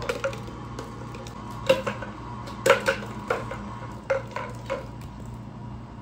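An empty plastic bottle being batted and knocked across a tile floor by kittens: about half a dozen sharp clattering knocks, the loudest near the middle.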